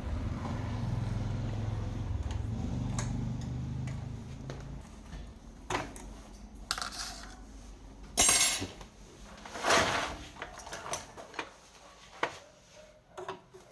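Low steady hum, like an amplifier's mains hum, that stops about four and a half seconds in, followed by scattered metallic clinks and clatter of tools or parts being handled, the loudest two scrapes about eight and ten seconds in.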